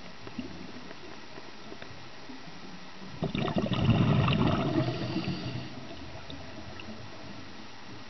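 Underwater recording of a scuba diver's exhaled bubbles: a bubbling gurgle from the regulator about three seconds in, lasting a couple of seconds. Under it runs a steady underwater hiss with faint scattered clicks.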